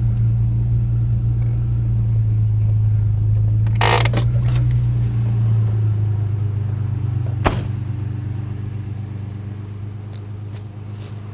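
Pickup truck's engine and road noise heard from inside the cab as a steady low drone, easing off over the last few seconds as the truck slows. A short rustling burst comes about four seconds in, and a single sharp click about halfway through.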